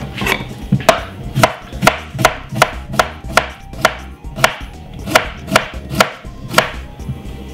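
Kitchen knife slicing a cucumber into rounds on a wooden cutting board: a steady run of sharp knocks as the blade hits the board, about two cuts a second.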